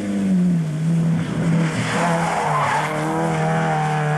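Vauxhall/Opel rally car engine at high revs as the car passes close. Its note drops sharply as it goes by, then holds steady as it pulls away, with a hiss of tyre noise about halfway through.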